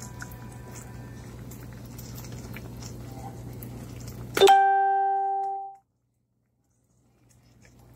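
Pot of broth with rice noodles simmering, with faint small pops over a steady low hum. About four and a half seconds in, a sudden loud ringing tone sounds for about a second and a half. The sound then cuts out completely for over a second before fading back in.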